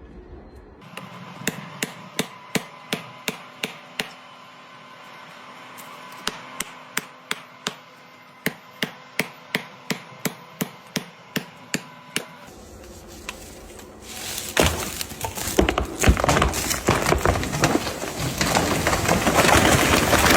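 Two runs of sharp wooden knocks, about three a second, as wood is struck. Then, about fourteen seconds in, a tree cracking and splintering as it gives way and falls, getting louder toward the end.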